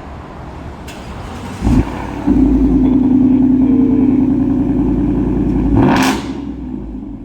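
Ford F-150's 5.0 V8 exhaust revving: a short blip about two seconds in, then a rev held steady for about three seconds, ending in a sharp climb in pitch around six seconds before dropping back.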